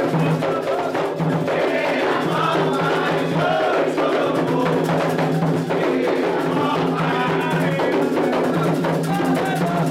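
Candomblé atabaque drums playing a dense, continuous rhythm under voices singing, a toque and song for the orixá Oxum.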